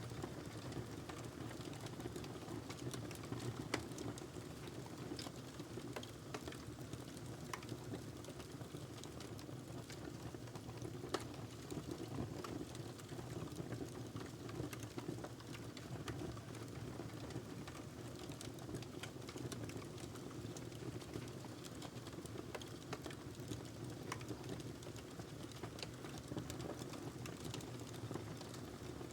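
Wood fire burning in a fireplace: a steady low rush of flames with continual small crackles and snaps of burning logs, a few sharper pops standing out.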